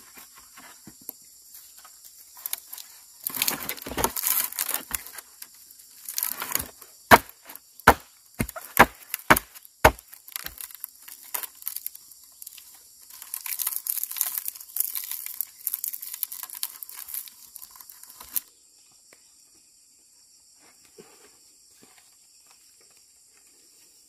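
Cut wooden poles knocking against each other as they are pushed together into a bundle, a run of about half a dozen sharp knocks in quick succession. Crackling and rustling of a strip of leaf fibre as the bundle is tied.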